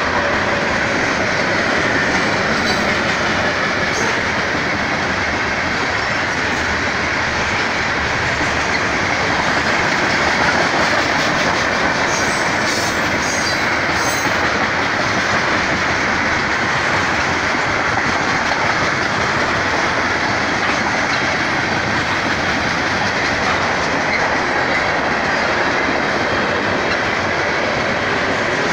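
BNSF freight train's tank cars and loaded centerbeam flatcars rolling past at a steady speed, the wheels running over the rails in an even, continuous noise.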